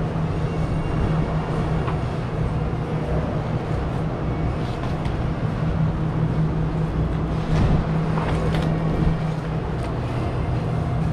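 A steady low hum over a rumble, with a few faint clicks and knocks around the middle.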